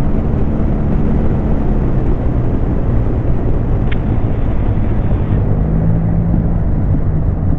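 Motorcycle riding at steady speed: a loud, even rush of wind and road noise with the engine's steady hum underneath.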